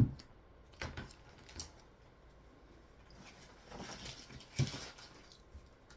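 Hard plastic CGC comic slabs being handled on a table: a few light clicks and knocks, a short rustle about four seconds in, and a knock just after it.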